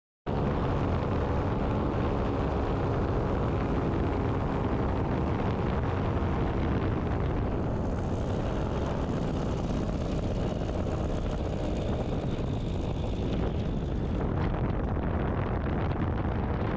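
Paramotor engine and propeller running steadily in flight, cutting in suddenly after a moment of silence.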